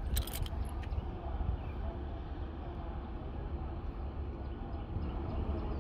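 Wind rumbling on a phone microphone held out over a bridge railing, with a faint steady hum underneath. A few handling clicks come in the first half-second.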